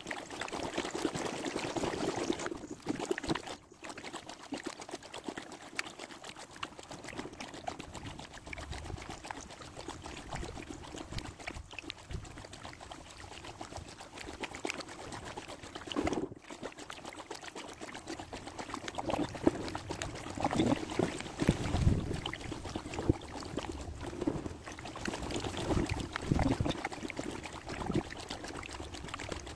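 Kayak paddle strokes in canal water: water splashing and trickling off the paddle blades in an irregular rhythm, with heavier splashes in the second half.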